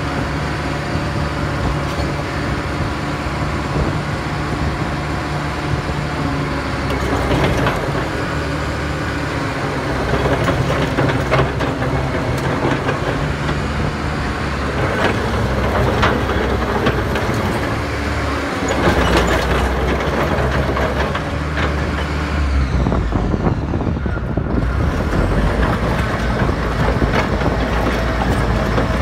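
Caterpillar 963 track loader driving on its steel tracks: the diesel engine runs steadily, its note shifting a couple of times, over a continual clanking and clicking of the track links.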